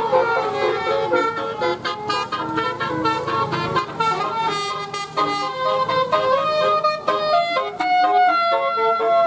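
Indonesian tourist bus's musical multi-tone air horn playing a melody, its notes stepping up and down quickly, with a longer held note near the end.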